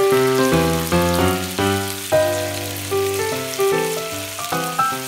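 Tofu cubes sizzling and crackling as they fry in hot oil in a pan. Background music with a quick run of notes plays over it throughout.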